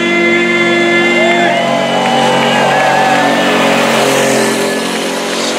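Semi truck's diesel engine running hard under full load while pulling a weight sled, with long held pitched tones, some gliding, laid over it in the first few seconds.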